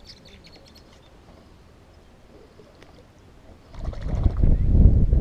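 Quiet open-water background, then about three and a half seconds in, loud wind buffeting the microphone with a low rumble.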